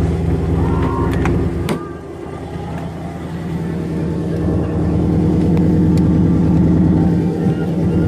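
Dodge Charger Scat Pack's 6.4-litre HEMI V8 idling steadily, with a sharp click about two seconds in.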